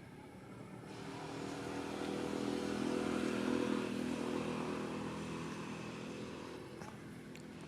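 A passing vehicle engine, a steady note that grows louder to a peak about three seconds in, then fades away.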